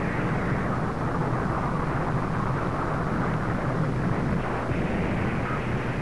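Steady, heavy low rumble with no distinct separate blasts, on an old film soundtrack.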